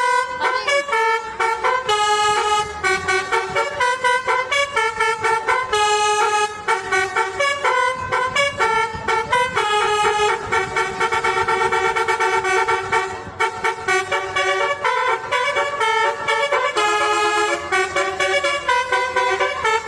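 Vehicle horn honking in a rapid run of short blasts that jump between several pitches, like a tune played on the horn.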